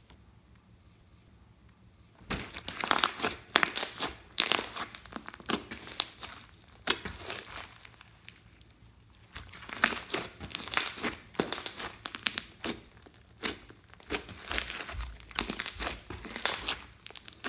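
Hands squishing and stretching thick slime, giving runs of sticky crackling clicks. It starts about two seconds in and eases off briefly around the middle.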